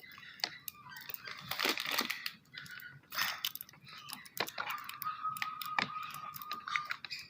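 Plastic bottles and containers crackling and clicking as they are handled and squeezed while more ingredient is added to the slime glue. A thin, steady squeak starts about five seconds in and lasts about two seconds.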